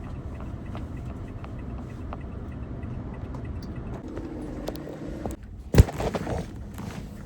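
Car on the move: steady low engine and road rumble, broken by one sharp, loud knock about six seconds in.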